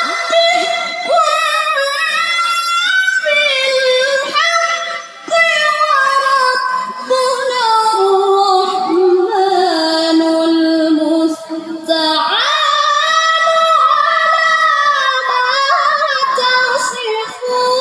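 A qari's high voice reciting the Qur'an in melodic tilawah style, drawing out long ornamented notes that slide up and down. There are short breaths about five and eleven seconds in, and a rising swoop just after.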